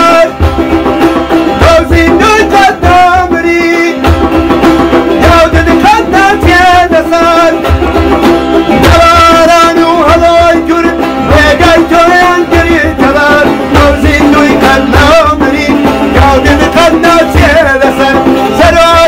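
Kurdish folk-style song: a man's voice sings a wavering melody over a hand drum keeping a steady beat, with a plucked long-necked lute.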